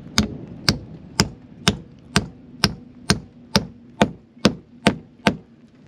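Hammer driving a nail into timber: about a dozen steady blows, a little over two a second, stopping shortly before the end.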